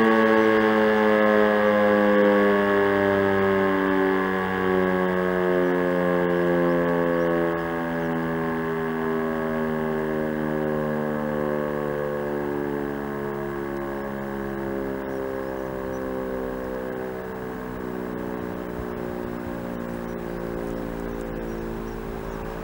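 Elektror E57 electro-mechanical civil-defence siren winding down after a test signal, its tone sliding slowly lower in pitch and fading.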